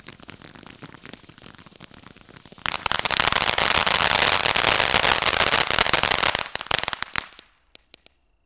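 Crystal Geyser fountain firework spraying sparks: light scattered crackles at first, then about three seconds in it flares into a loud, dense crackling hiss that lasts about four seconds before dying out, with a few last pops near the end.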